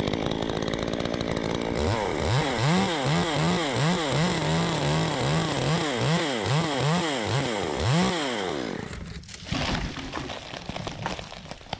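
Chainsaw cutting through an oak limb, its engine speed rising and falling about twice a second as it works the cut, then stopping about three seconds before the end, followed by a knock.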